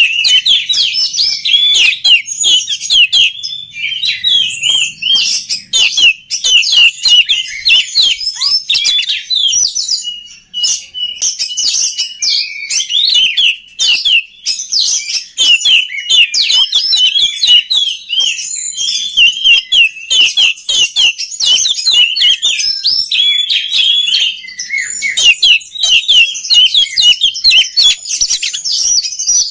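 Oriental magpie-robin (kacer) singing a fast, near-continuous run of varied chirps and whistles, with a brief pause about ten seconds in.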